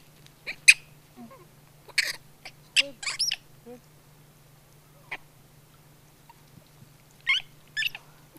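Long-tailed macaques giving short, high-pitched squeaky calls in small groups with pauses between, some sliding quickly up and down in pitch.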